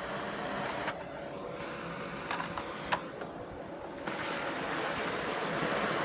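Canister vacuum cleaner running steadily, its floor nozzle pushed over artificial turf, with a few light knocks about one, two and a half and three seconds in. The hiss grows brighter and a little louder about four seconds in.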